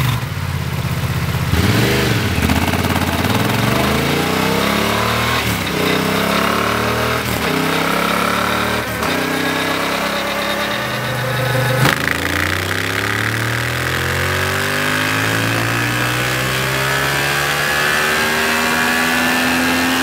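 Yamaha Ténéré 700's parallel-twin engine, fitted with a Dynojet airbox lid, doing full-throttle pulls on a chassis dynamometer. The engine note climbs repeatedly, breaking off and dropping back several times, then rises in one long steady climb through the second half.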